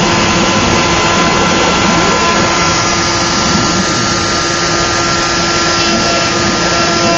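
Router spindle on a Joe's 4x4 Hybrid CNC machine running steadily as it carves wood, a constant whine over a loud even rush of cutting noise.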